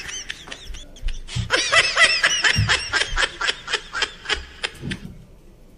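A man laughing in high-pitched giggles: a short laugh at the start, then a long, quick run of laughs from about a second and a half in that stops about five seconds in.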